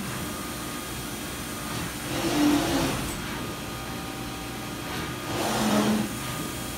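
Yang YVM-1000H CNC vertical machining center running with a steady hum. Twice, about two seconds in and again about five seconds in, a louder whine of the axis drives rises and falls for about a second as the spindle head makes a rapid move.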